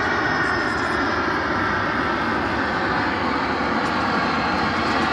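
Jet aircraft engine noise: a loud, steady rush with faint tones sliding slowly down in pitch.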